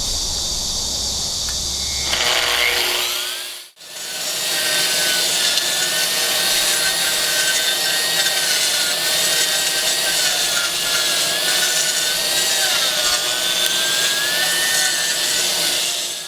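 AGP concrete grinder on its floor trolley running and grinding concrete: steady grinding noise over a motor whine that wavers slightly in pitch. The sound briefly drops out about four seconds in, then carries on steadily.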